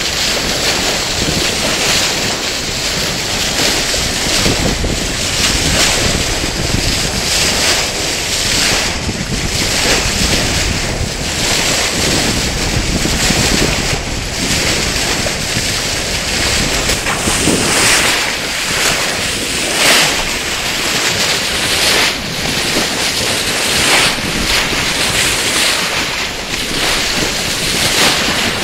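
Wind buffeting the microphone over water rushing and splashing along the hull of a moving boat: a loud, steady rush with frequent brief surges.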